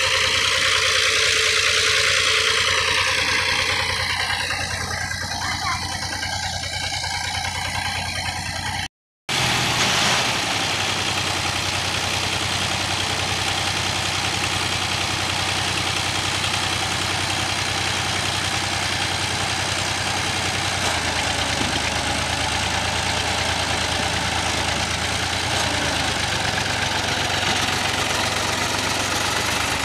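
Fiat Ghazi 75 hp tractor's diesel engine running steadily under load as the tractor works its mud-bogged rear wheels out of a flooded field over a log. The sound cuts out briefly about nine seconds in.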